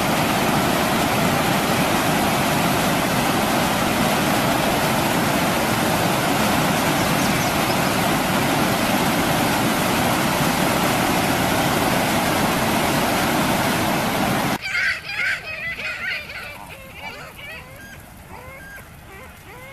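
Whitewater river rapids rushing, a steady loud wash of water. About fifteen seconds in it cuts suddenly to a much quieter scene of Canada geese honking in short calls.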